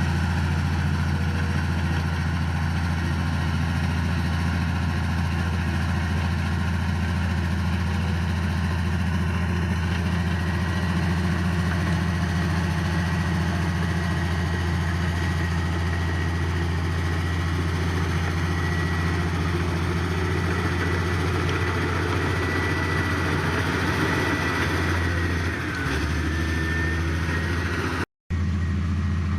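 Heavy diesel engine of earthmoving machinery running steadily with a deep, even hum. Its pitch drops slightly near the end, and the sound briefly cuts out.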